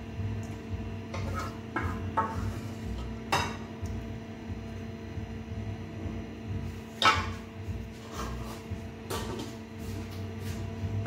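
A wooden spoon and metal pot clatter against a plate as stew is served: a string of irregular knocks and scrapes, the loudest about seven seconds in. A steady faint hum runs underneath.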